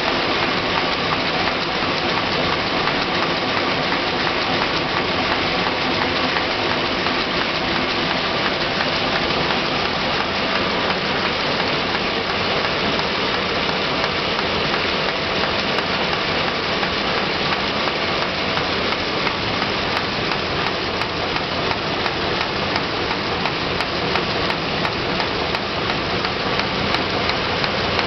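Film packaging envelope pasting machine running: a steady, even mechanical noise with a faint hum running through it.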